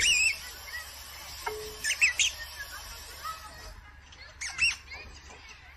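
Short, high, electronic-sounding chirps and tweets from a cat-game app on a tablet, coming in a few quick clusters about two seconds apart.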